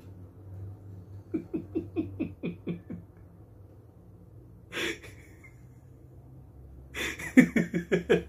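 A man laughing in a menacing way. A run of short, quick 'ha' pulses comes about a second in, a single sharp breath near the middle, and louder, rapid laughter breaks out near the end.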